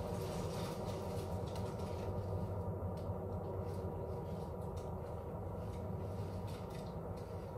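Low rumbling ambient drone from a live electronic set played through PA speakers: steady held tones over a deep rumble, with faint scattered crackles, slowly fading.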